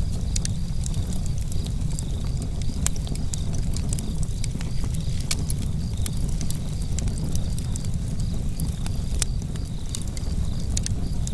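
Campfire burning, with irregular sharp crackles and pops over a steady low rumble. Crickets chirp in an even, repeating pulse.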